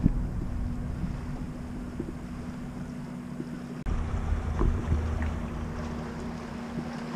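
Wind rumbling on the microphone over a steady low hum, with a few faint clicks; the sound jumps abruptly louder about four seconds in.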